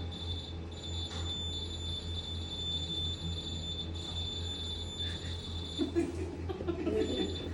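A steady high-pitched electronic whine over a low hum. It breaks off a little before six seconds in while a few faint knocks and rustles are heard, then returns near the end.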